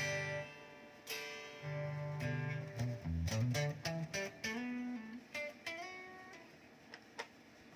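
Guitar played through a Zoom G1Xon multi-effects pedal in a fairly clean tone: a few strummed chords, then a quick run of single notes with slides in the middle, and the last notes ring and fade away near the end.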